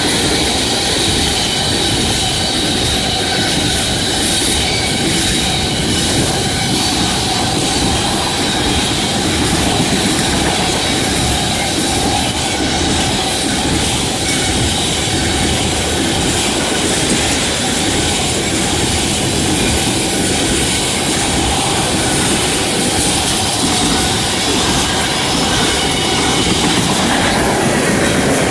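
A long freight train of tank cars rolling past, its wheels running on the rails with a steady high-pitched wheel squeal that shifts near the end.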